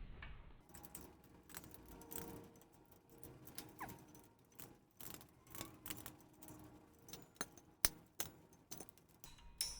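Faint, scattered metallic clicks and taps of an Allen wrench working the bolts of a truck bed crane's mounting base as they are tightened, with one louder click near the end.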